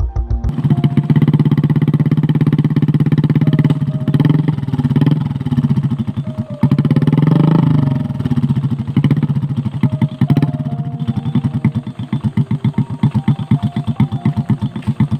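Small motorcycle engine running under load, revving up and back down around the middle, with a fast steady firing pulse throughout.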